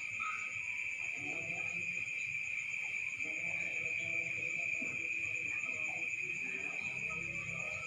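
Steady, unbroken high-pitched chorus of night insects, with faint voices in the background.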